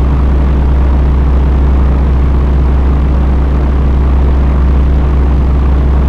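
Steady, loud, deep motor drone with a strong low hum and no change in pitch.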